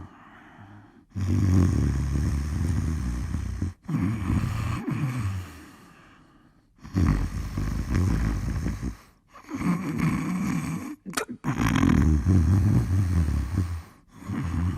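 A person snoring: three long, rattling snores about four to five seconds apart, each paired with a shorter breath, with a couple of quick clicks in the breathing about two-thirds of the way through.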